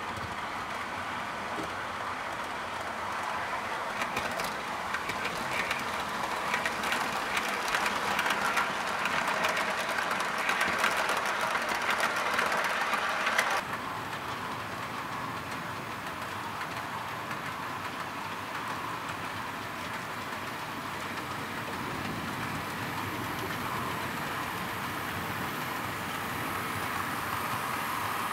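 Model train running on the layout's track: a steady running noise with rapid clicking of the wheels over the rail joints in the first half, which drops away abruptly about halfway through to a smoother steady running sound.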